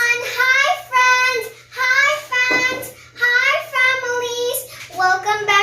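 A young girl singing a short tune in phrases of held notes with brief pauses between them.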